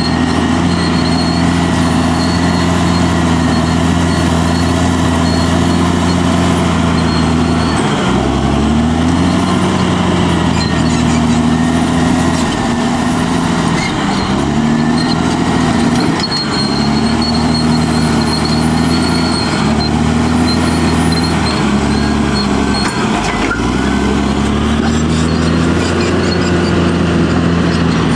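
Caterpillar D6R bulldozer's diesel engine working, its pitch dipping and recovering several times as the load changes, with a steady faint high whine over it.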